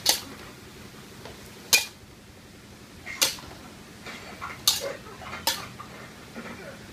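Metal spatula clanking and scraping against an aluminium wok while stir-frying greens: five sharp strikes spaced a second or more apart, with a few lighter knocks in between.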